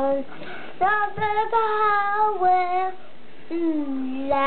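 A young boy singing a slow song, drawing out each note, in two phrases with a short pause between them.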